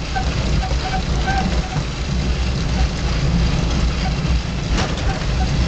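Off-road vehicle driving over a rough dirt track, heard from inside the cabin: a steady low engine rumble with road noise. There is a single sharp knock near the end.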